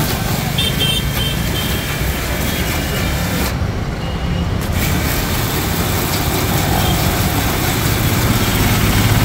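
3 HP single-phase electric pressure washer (GMP 2100, 160 bar) running, its motor and pump humming under the hiss of the water spray. The hiss cuts out for about a second partway through, then resumes.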